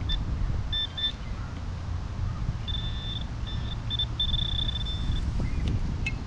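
High-pitched electronic beeps from a metal detector sounding on a metal target: two short beeps about a second in, then a broken run of beeps that merges into a longer held tone around the middle and stops near the end. Low wind rumble on the microphone runs underneath.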